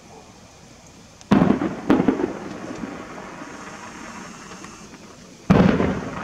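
Aerial firework shells bursting: two booms about half a second apart, a little over a second in, then another loud boom near the end. Each fades off in a rumble.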